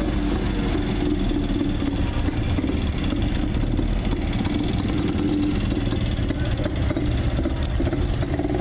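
1962 MGA's four-cylinder engine running at low revs as the car drives slowly past and pulls away, a steady engine note.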